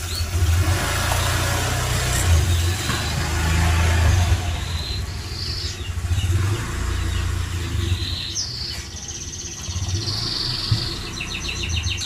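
White-rumped shama (murai batu) singing in short phrases: a high trill partway through and a run of quick chirps near the end, over a steady low rumble.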